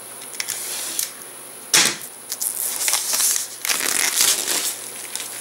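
Plastic wrap crinkling and rustling as a stack of cardboard board-game tiles is handled and unwrapped. There is one sharp, louder rustle just before two seconds in, then a run of crinkling.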